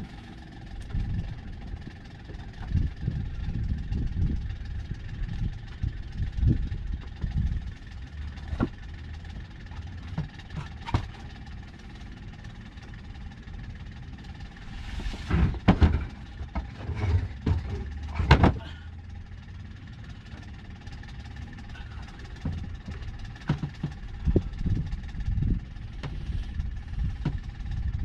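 A sailboat's auxiliary engine running steadily, with wind buffeting the microphone in low gusts. A few sharp knocks come about halfway through.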